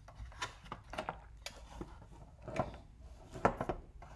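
Gloved hands handling phone-box packaging close to the microphone: a string of irregular small clicks and taps with soft rubbing between them, as a hinged plastic box lid is lifted and accessories are moved. The loudest clicks come past halfway.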